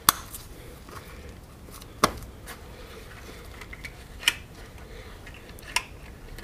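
Metal buckle and strap-adjuster hardware of a safety harness clicking as it is fastened and tightened: five sharp clicks, one every second or two, with faint webbing rustle in between.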